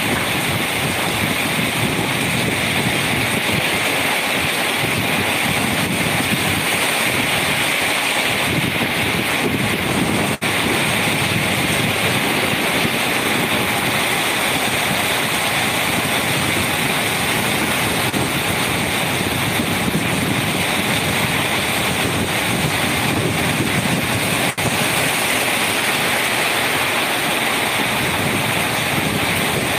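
Moderate rain pouring steadily, a continuous hiss that cuts out for an instant twice, about ten and twenty-five seconds in.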